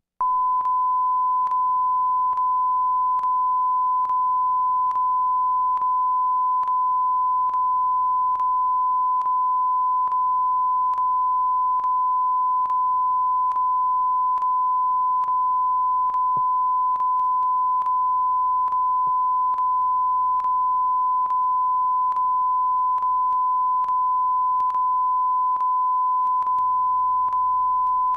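Steady 1 kHz test tone, starting suddenly out of silence, with a faint tick a little more often than once a second.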